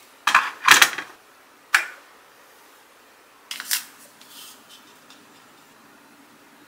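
A few sharp clicks and knocks from handling an electric kettle and a glass cup on a counter, the loudest about a second in and another cluster a little past the middle.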